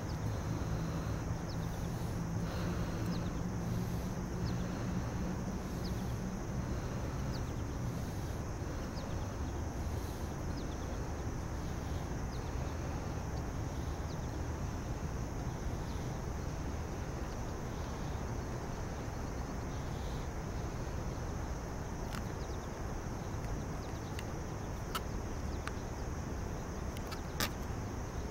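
Steady outdoor ambience: insects chirring continuously over a low rumble of distant traffic. A few sharp clicks come near the end.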